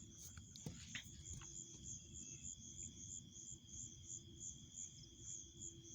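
Crickets chirping at night, faint: one steady high trill and another pulsing evenly about three times a second, over a faint low steady hum.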